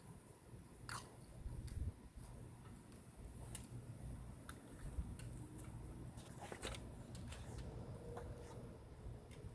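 Faint scattered clicks and small crunches of a screen roller pressing screen mesh into the groove of a screen frame.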